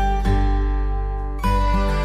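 Background music: a gentle instrumental track of picked, ringing notes over a steady low bass.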